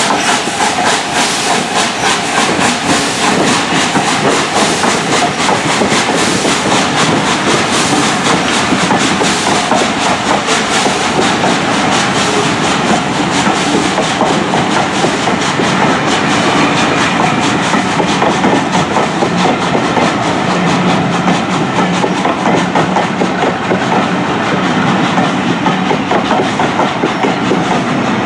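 Passenger coaches of a train rolling past close by, their wheels clicking over the rail joints in a loud, steady clickety-clack.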